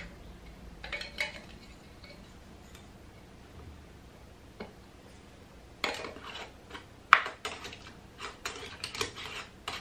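Metal canning lids and screw bands being put on and twisted onto glass mason jars: scattered clinks about a second in, then a quick run of metal-on-glass clinks and scrapes in the second half.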